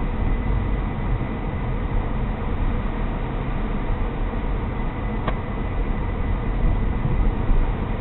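Car driving, heard from an in-car camera: a steady low rumble of road and engine noise, with a faint steady high tone and a single sharp click about five seconds in.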